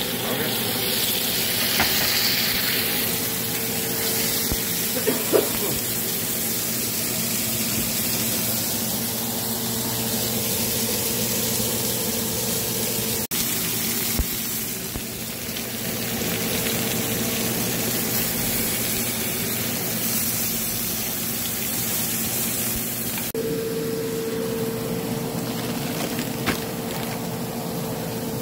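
Steaks sizzling in a hot ridged grill pan: a steady frying hiss, with a few brief knocks.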